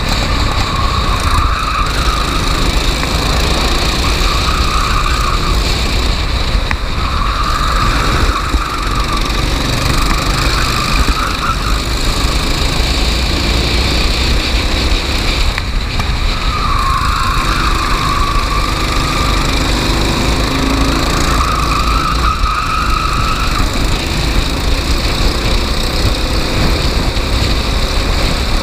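Racing kart engine running hard during a race, its note climbing and dropping again and again as the revs change, over a heavy steady low rumble.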